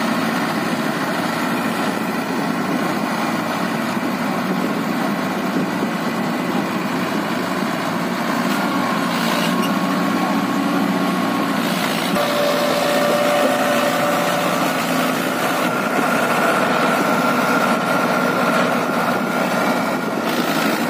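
Mahindra Arjun Ultra-1 555 DI tractor's four-cylinder diesel engine running steadily while the tractor is bogged down in deep mud. It gets a little louder about halfway through.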